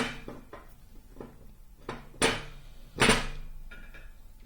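Metal parts of a Proto 3/4-inch drive ratchet being handled: three sharp metallic knocks with short ringing, and lighter clicks between them, as the greased head and its cover plate are worked together.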